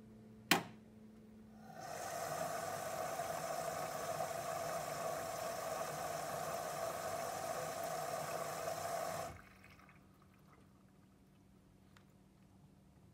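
LG TurboWash front-loading washing machine filling: a sharp click, then water rushes in through the inlet valve for about seven seconds and cuts off suddenly.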